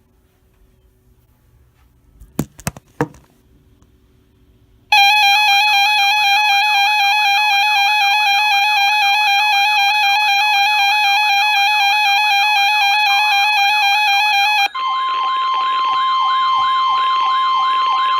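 NOAA Weather Radio alert signal: after two sharp clicks, a loud electronic alert tone warbling about three times a second starts about five seconds in. Near the end a steady 1050 Hz attention tone joins under the warble, the signal that a warning broadcast is about to follow.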